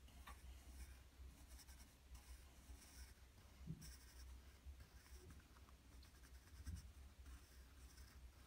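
Pencil scratching faintly on notebook paper in short strokes as cursive letters are written.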